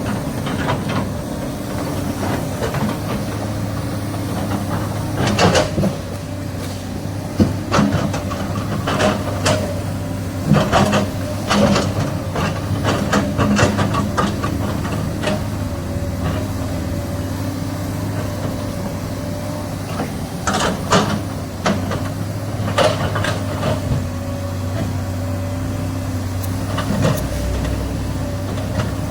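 SANY excavator's diesel engine running steadily, with repeated short knocks and clanks over it, coming in clusters through the first half and again later on.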